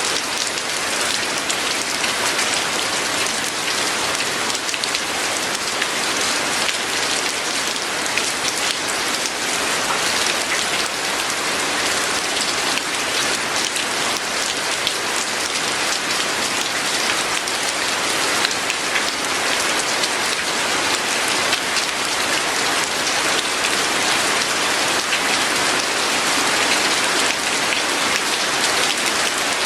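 Steady heavy rain falling and pattering on a surface, a dense even hiss of drops with no letup.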